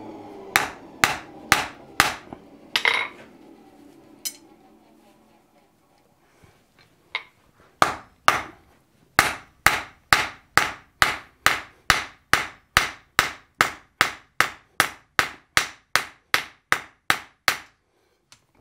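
Hand hammer striking a hot tool-steel bar held in tongs on a steel anvil, drawing out a taper: a few blows, a pause of several seconds, then a steady run of about two blows a second.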